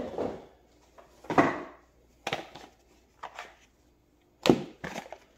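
An oracle card deck in its cardboard box being picked up and handled: a few brief rustling scrapes, then several sharp clicks and taps of the box near the end.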